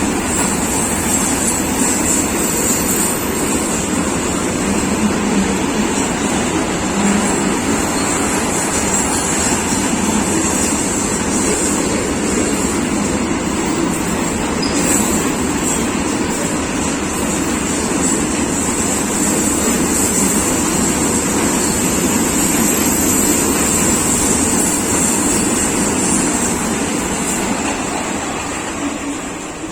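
Freight train hauled by a WAG-12 electric locomotive passing at speed: a steady rumble and rattle of wheels and wagons on the track, easing off near the end.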